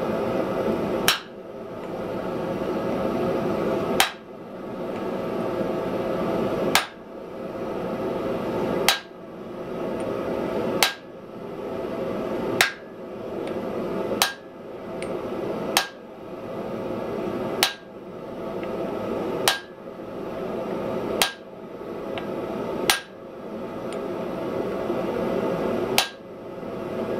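Blacksmith's hand hammer striking a handled tool held on a glowing block of wrought iron on the anvil: single sharp metallic blows, about fourteen of them, spaced every couple of seconds and coming a little faster near the end, over a steady background noise.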